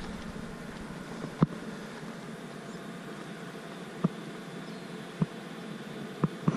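Steady outdoor background hiss with a few sharp, irregular knocks or taps.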